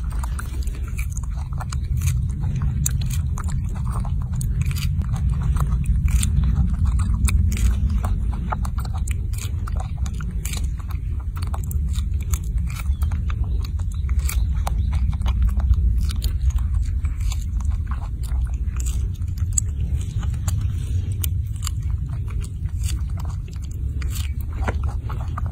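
Baby macaque biting into and chewing ripe strawberries: a run of short, wet, crunchy clicks and smacks throughout, over a steady low rumble.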